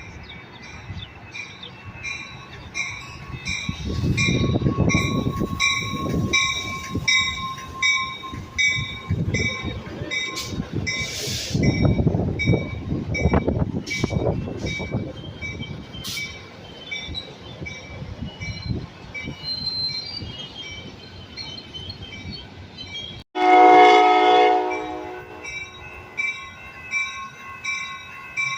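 A bell rings steadily, about one strike every 0.7 s, over the low rumble of a train. About 23 seconds in, a train horn sounds one loud chord for about two seconds.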